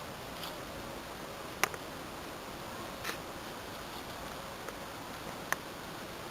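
Steady quiet hiss broken by three short, sharp clicks or snaps.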